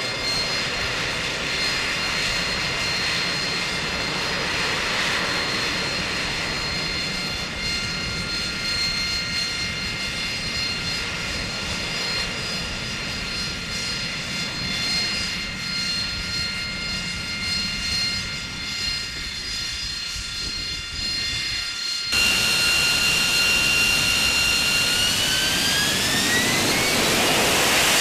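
AV-8B Harrier's Pegasus vectored-thrust turbofan running with a steady high whine over a jet rumble as the jet hovers. About 22 seconds in, a cut brings a louder, closer Harrier engine whose whine rises in pitch near the end as it spools up for a deck takeoff.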